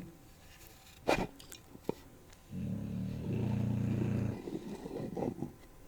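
A dog's low, drawn-out growl lasting about two seconds, starting near the middle, after two sharp clicks about a second in; scattered light clicks follow near the end.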